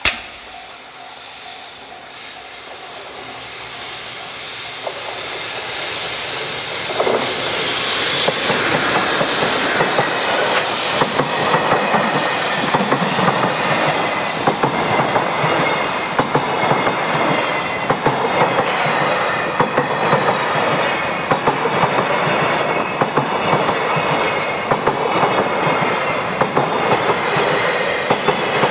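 A freight train hauled by an EF210 electric locomotive approaches and passes. The sound grows louder over the first several seconds, then becomes a long, steady clatter of wheels over rail joints with a thin wheel squeal above it.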